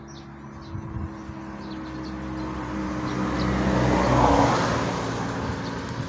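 A motor vehicle driving past close by. Its engine and road noise build up, peak about four seconds in, then fade away.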